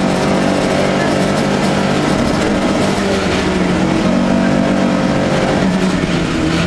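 Opel Manta rally car's engine heard from inside the car, running hard under load with road and tyre noise beneath it; the engine note shifts in pitch a few times and dips briefly near the end. The driver says the engine was no longer pulling well on this stage.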